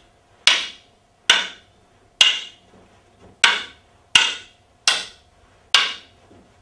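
Wooden fighting sticks clacking together as strikes are met by blocks in a partner drill: seven sharp knocks at a steady pace, a little under one a second.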